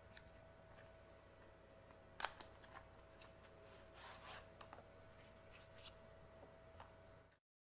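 Near silence: faint room tone with a steady low hum and a few faint clicks and rustles, one sharper click about two seconds in. The sound cuts off completely near the end.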